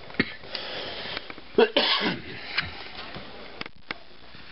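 A person coughing once, a short loud burst about two seconds in, amid a few small clicks and knocks.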